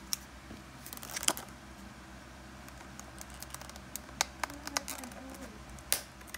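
Stiff clear plastic blister packaging crinkling and crackling as it is handled and worked open, with scattered sharp clicks; the loudest come about a second in, near four seconds and near six seconds.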